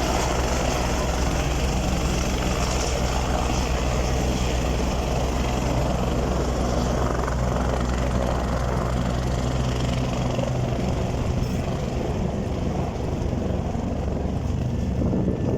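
Helicopter engine and rotor running steadily, with a deep low tone that shifts about ten seconds in.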